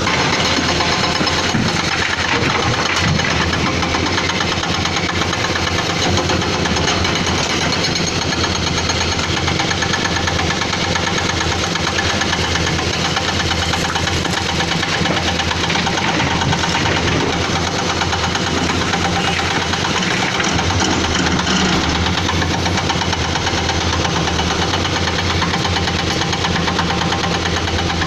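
Diesel engine of a Caterpillar 320D excavator running steadily, with a fast, even knock.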